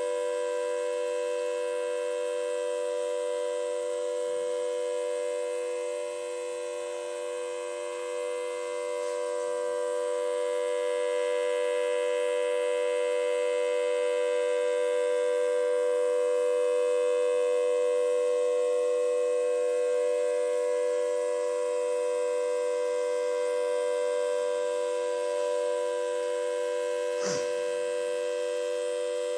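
Homemade Federal Signal Thunderbolt 1003 siren sounding its full alert signal: a steady, multi-tone chord held at one pitch, its loudness dipping and swelling slowly. A single sharp click near the end.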